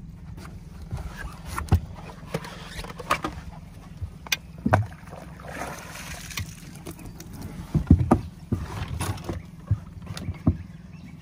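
Scattered knocks and clunks on a small fishing boat as a freshly landed barramundi is handled between unhooking and measuring, over a steady low hum. The loudest knocks come in a short cluster about eight seconds in.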